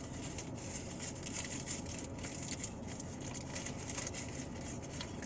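Low, steady background noise with faint, irregular rustling and small clicks.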